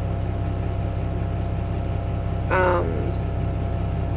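A steady low hum, like a running engine, with one short pitched call or vocal sound about two and a half seconds in.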